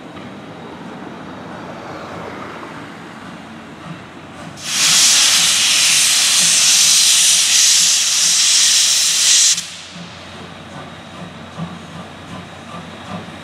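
C58 steam locomotive letting off a loud, steady hiss of steam for about five seconds, starting and cutting off sharply, as it moves off with its train.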